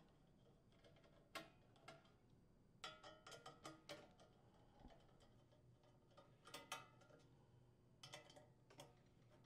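Faint, scattered metal clicks and taps from a nut driver working the mounting screws of a small engine's sheet-metal muffler guard, with a quick run of clicks about three seconds in.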